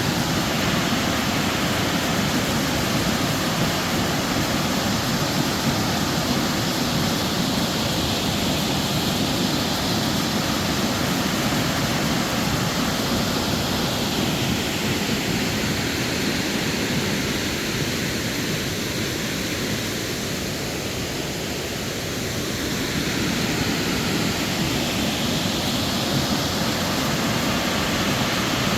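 Steady rushing roar of the 130-foot main waterfall on the Falling Water River plunging into the gorge, dipping a little about two-thirds of the way through and then swelling back.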